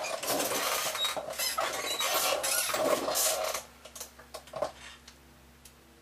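Rustling and scraping handling noise with scattered clicks, stopping abruptly about three and a half seconds in; a few faint clicks follow.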